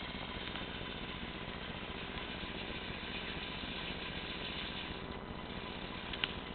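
Gorenje front-loading washing machine running, a steady mechanical hum with a faint whine, with a sharp click right at the start and another near the end.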